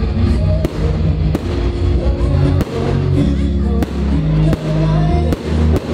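Fireworks display over loud music. The music runs throughout, broken by a string of sharp firework bangs, roughly one a second.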